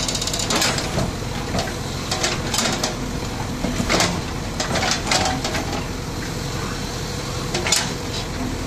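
JCB 3DX backhoe loader digging: its diesel engine runs steadily while the backhoe bucket scrapes and clanks through loose soil, with several sharp metallic knocks, the loudest about four seconds in and near the end.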